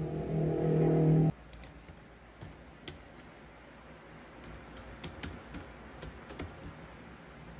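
A steady low hum that cuts off suddenly just over a second in, then typing on a computer keyboard: scattered keystrokes, a few each second at most.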